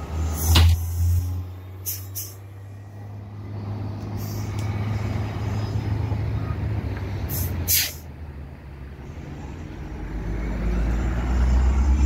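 Hybrid-electric city buses at a stop: a steady low engine rumble broken by sharp air-brake hisses, the loudest about half a second in and just before eight seconds in, with shorter ones around two seconds. The engine rumble grows louder near the end as a bus moves off or pulls in.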